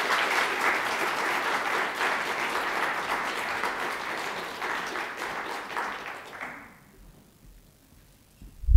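Audience applauding, the clapping tapering off about six and a half seconds in. A low thump near the end.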